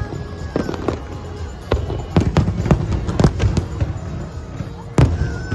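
Fireworks bursting over a steady low rumble: scattered bangs, then a rapid run of cracks and booms about two seconds in, and one loud boom near the end.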